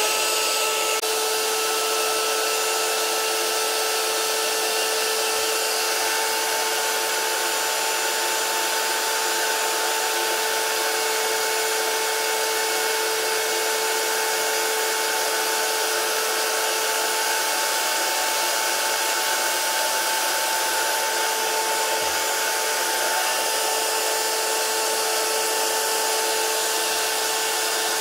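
Parkside PALP 20-Li B2 cordless air pump running steadily, blowing air into an inflatable pool lounger: an even rush of air with a constant fan whine.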